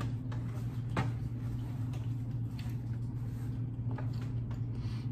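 A steady low hum with a few faint, scattered clicks.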